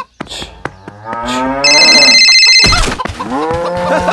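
Long, low, moo-like calls, two in a row, each rising in pitch and then holding. A loud buzzing tone breaks in about halfway through.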